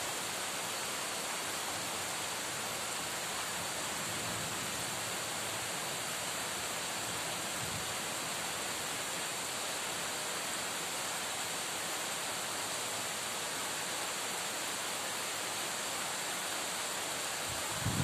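Heavy rain falling steadily, a constant even hiss.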